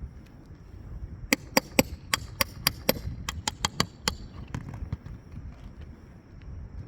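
A quick run of about a dozen sharp taps, roughly four a second for about three seconds starting a second in, as a roofer works nails loose to pull an old asphalt shingle.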